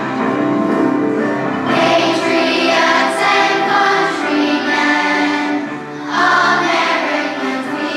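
A large group of elementary-school children singing together in unison over an instrumental accompaniment. The voices come in strongest about two seconds in, ease off briefly, and swell again near the end.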